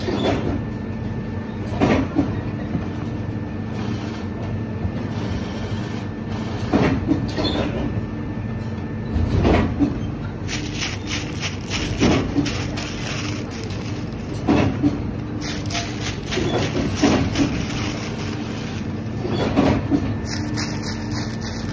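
Steady machinery hum on a shoe-factory floor, broken by a short thump every two to three seconds.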